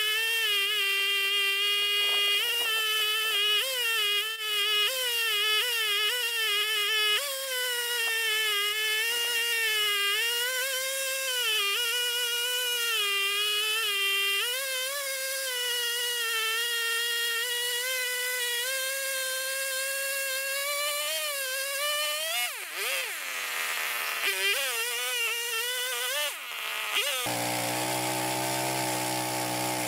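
Two-stroke chainsaw running at high revs while cutting a log in a home-built chainsaw mill, its pitch wavering as the load changes. About 27 seconds in it drops abruptly to a lower, steadier running.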